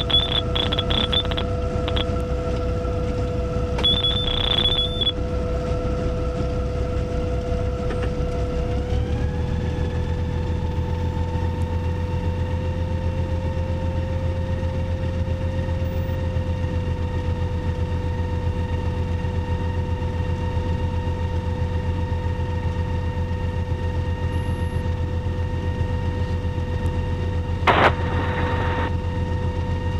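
Motorglider's piston engine and propeller running at taxi power, a steady drone that steps up in pitch about nine seconds in. A high electronic beep sounds in short runs during the first few seconds, and there is a brief knock near the end.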